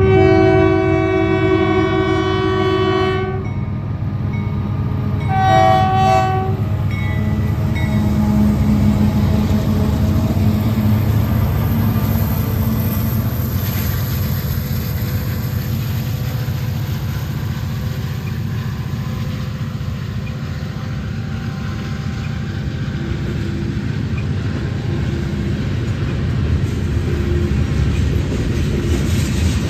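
Union Pacific diesel freight locomotive sounding its multi-note air horn, a long blast of about three and a half seconds and then a short one. The locomotives then pass under power with a steady low diesel rumble, followed by the rolling freight cars.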